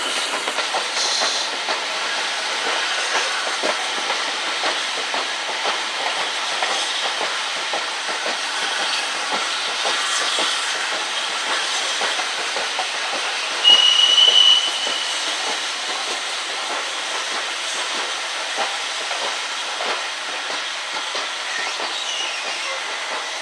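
Steam-hauled passenger train heard from an open carriage window: a steady running rush with the clatter of carriage wheels on the rails. About 14 seconds in, the locomotive gives one short, high whistle blast.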